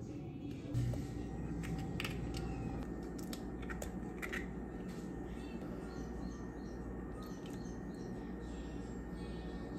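Eggs cracked by hand over a pot: several sharp cracks and snaps of eggshell in the first half. A steady low hum comes in about a second in and runs under it.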